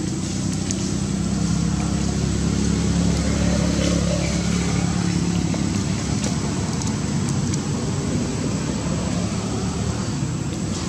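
A motor vehicle's engine running with a low, steady drone. It grows louder about three to four seconds in, then eases off.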